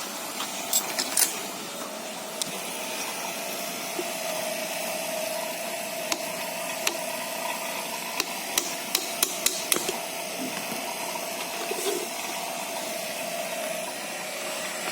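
Sharp metallic clicks and light knocks from hands working on an electric fan's motor, whose seized bushing won't let the shaft come out. The clicks come a few at a time, about a second in and again in a cluster later on, over a steady background hum.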